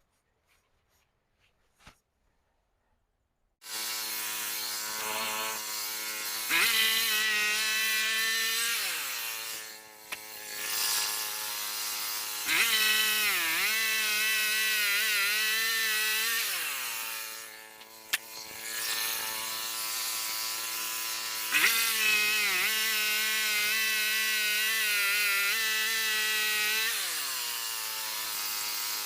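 Frontier OS27 portable bandsaw mill running and sawing a log, starting abruptly after a few seconds of near silence. Its engine note sags and recovers several times as the cut loads it.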